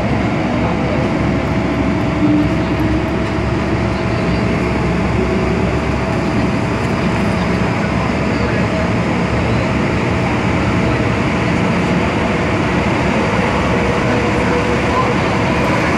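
MTR Tsuen Wan Line M-Train heard inside the passenger car, running on the rails with a steady rumble and a thin steady whine from the traction equipment.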